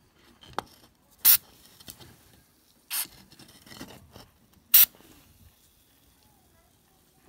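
Aerosol penetrating oil sprayed through a thin extension straw in three short hissing bursts, about a second and a half to two seconds apart, onto a corroded, seized pipe nut to loosen it.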